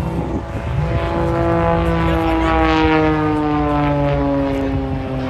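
Extra 330SC aerobatic plane flying past, its engine and propeller drone dropping steadily in pitch as it goes by, loudest about halfway through.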